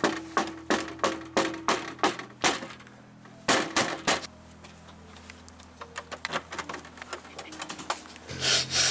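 Knocking on a door: a run of about eight sharp knocks, then after a pause four more, followed by fainter scattered clicks and a brief louder noise near the end.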